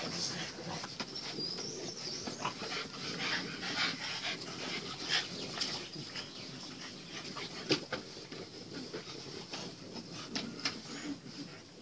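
French bulldog puppies panting and snuffling around a plastic paddling pool, with many short splashes as their paws move in the water.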